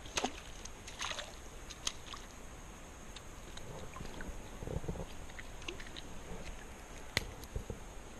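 Creek water sloshing and splashing lightly, with scattered short clicks and knocks, the sharpest about seven seconds in.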